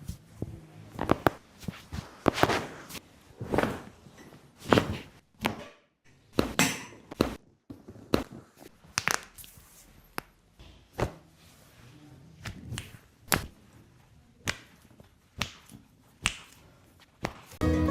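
A long run of dull thumps and slaps, mostly about one a second, from a chiropractor's hands striking and working on a patient's body.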